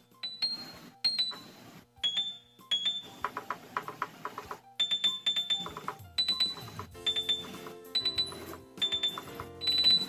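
Yamaha electronic keyboard sounding single notes in the upper register, one key at a time with short gaps, and from about seven seconds in lower notes sound as well. The B-flat key stays silent: a dead note that the owner traces to a resistor leg separated by rust.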